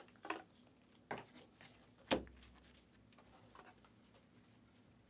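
Trading cards being handled as a stack of 2023-24 Panini Donruss basketball cards is flipped through: scattered soft clicks and snaps of card stock. One louder knock comes about two seconds in.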